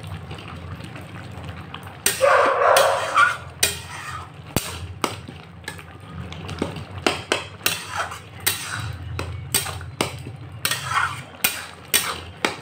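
A flat spatula pressing and mashing cooked tomatoes and jaggery in an aluminium kadhai, knocking and tapping against the metal pan many times at an uneven pace. A louder noise lasting about a second comes about two seconds in.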